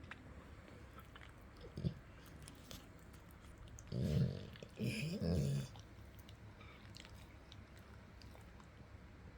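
Sleeping American Staffordshire terrier snoring: a short snore near two seconds in, then two loud snoring breaths back to back about four seconds in, with faint breathing in between.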